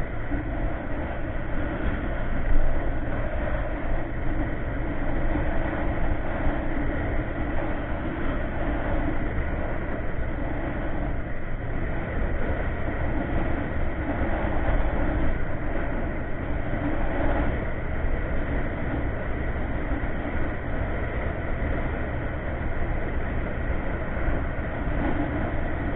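Steady riding noise from a Yamaha Mio MX125 scooter at speed: wind rush on the microphone over the drone of its single-cylinder engine and road noise, with one short louder rise about two and a half seconds in.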